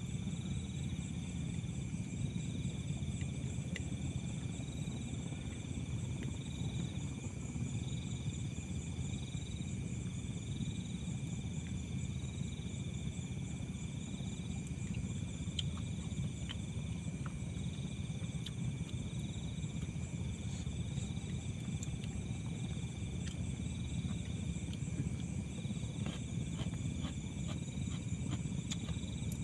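Insects, crickets or similar, calling: steady high-pitched chirring and a higher trill that pulses on and off about every second and a half, over a steady low rumble.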